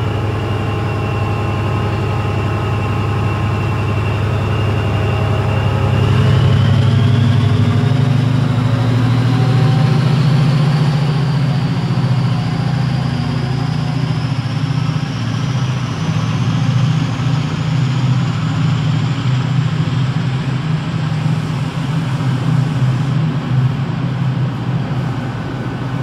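Class 68 diesel-electric locomotive with its V16 engine, pulling a passenger train away from a standstill: a steady engine drone with a high whine over it. About six seconds in the engine note steps up and the whine rises steadily in pitch as the train gathers speed.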